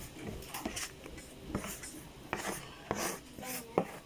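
Pandesal bread dough being kneaded by hand on a floured tabletop: irregular pressing and rubbing of the dough with soft thumps against the table, and a sharper knock near the end.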